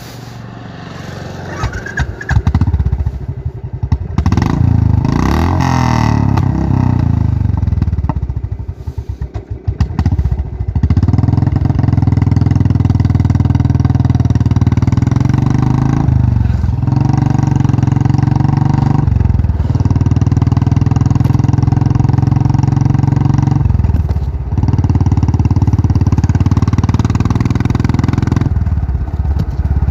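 Royal Enfield Classic 500's single-cylinder engine running loud. It varies unevenly over the first ten seconds or so, then settles into a steady low thump broken by brief dips every few seconds.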